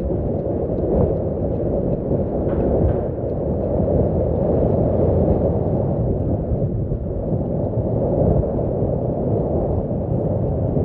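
Steady low rumble of wind buffeting the microphone on the open deck of a moving river cruise ship.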